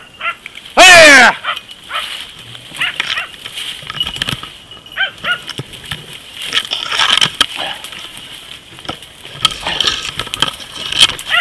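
A dachshund gives one loud falling bay about a second in, followed by fainter short barks. Under them comes a steady crackle and snap of twigs, branches and dry leaves as someone forces a way through thick brush.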